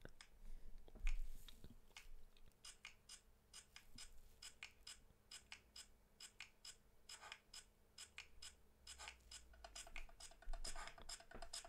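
Faint, irregular small clicks and taps, several a second, a few near the end with a short hollow ring.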